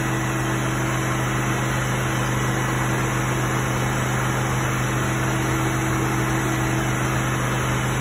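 Bee vacuum running steadily, air rushing through its hose as it sucks bees off a clinging swarm; a constant motor hum with no change.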